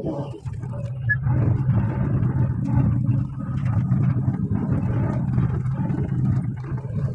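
Excavator's diesel engine running under load, heard from the operator's cab: a steady low drone that gets louder about a second in.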